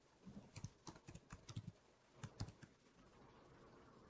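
Faint computer keyboard typing: a quick run of about fifteen keystrokes that stops about two and a half seconds in.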